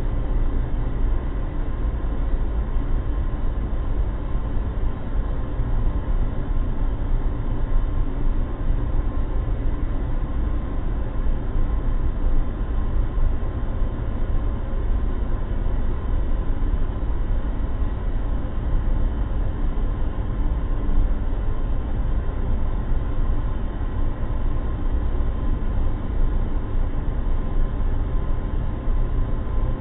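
Steady empty-space ambience: a continuous low rumble with a faint steady hum over it and no distinct events.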